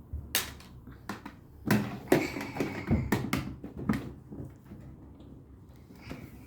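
Plastic toy tools knocking and clattering: a run of irregular taps and knocks, thickest in the middle, with one more knock near the end.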